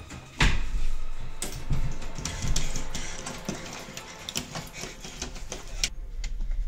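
Keys turning in a door lock while the door handle is worked: a run of sharp metallic clicks and rattles, the loudest about half a second in.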